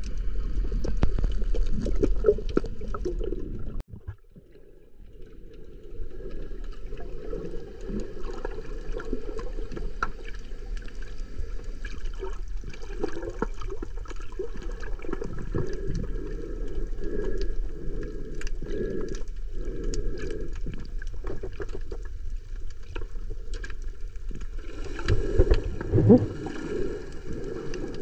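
Muffled underwater sound of moving water picked up by a submerged camera: a steady low wash with scattered faint clicks and crackles. It drops away briefly about four seconds in, and a few louder low bumps and sloshes come near the end.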